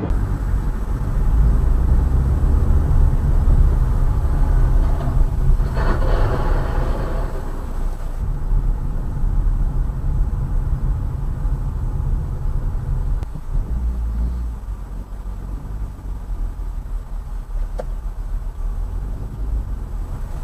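Low, steady road and engine rumble of a moving car, heard from inside the car. A short higher-pitched sound rises above it about six seconds in, and the rumble changes character at about eight seconds.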